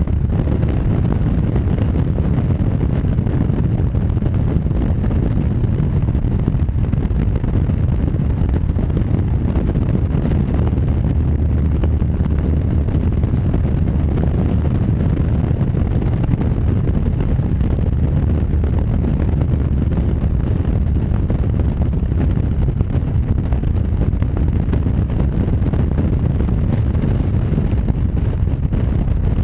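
Wind buffeting a motorcycle-mounted microphone over the steady low running noise of a Honda Varadero motorcycle cruising along a road. The noise stays even throughout, with no gear changes or revving standing out.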